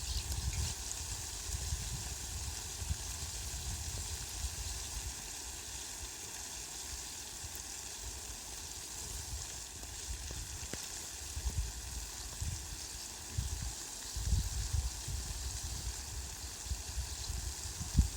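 Heavy rain falling on leafy plants, a steady hiss, with bouts of low rumbling near the start and again in the last few seconds.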